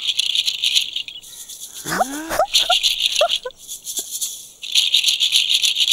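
A maraca shaken in three bursts of rattling, with a short pause between each. Short squeaky rising voice sounds come in the middle pause.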